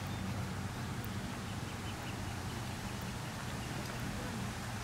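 Steady outdoor background at a ball field: an even low hum with faint, indistinct sounds in the distance and no distinct event.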